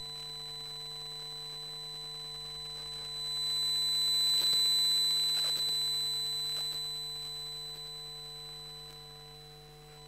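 Electromagnetic hum of a wifi router picked up by a phone pickup coil: a steady electrical buzz made of several fixed tones, with a high whine on top. About three seconds in it swells louder, then fades slowly back down over the next few seconds, with a few faint clicks.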